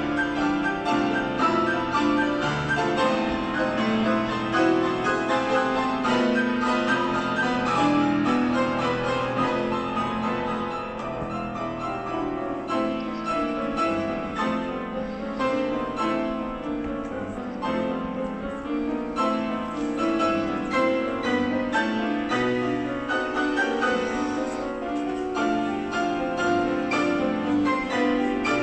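Instrumental piano music, with dense chords and runs playing continuously.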